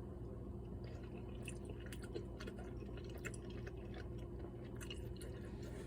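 A person chewing soft cheesy macaroni pasta close to the microphone: scattered, irregular small wet clicks and smacks, over a steady low hum.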